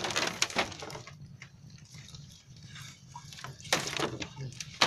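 Scattered sharp knocks and rustles in two clusters, one around the start and one near the end, with a quieter stretch between.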